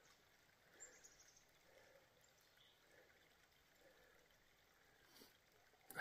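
Near silence: faint outdoor ambience with a few soft scattered sounds and a brief click near the end.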